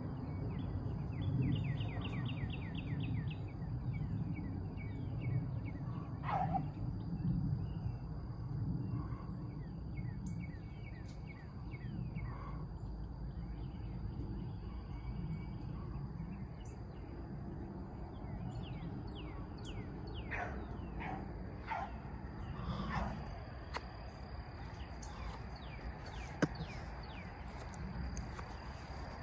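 Outdoor field ambience: a steady high insect drone, a bird's rapid run of chirps about two seconds in, and several short falling calls around twenty seconds in, over a low rumble.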